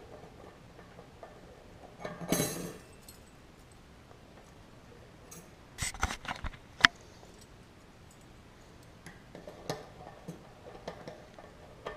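Bicycle cassette cogs and spacers clinking and clicking as they are handled and slid onto the rear wheel's freehub body. A handling rustle a couple of seconds in, a cluster of clicks around the middle ending in one sharp click, then lighter scattered clicks.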